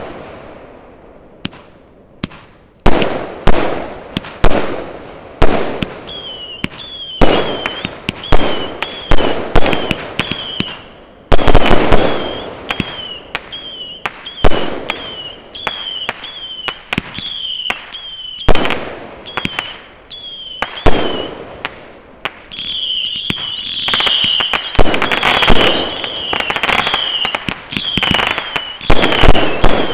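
Aerial fireworks going off in a rapid barrage, with a sharp bang every half second to a second. From about six seconds in, short shrill whistles sound between the bangs. About three quarters of the way through the reports come thicker for a few seconds.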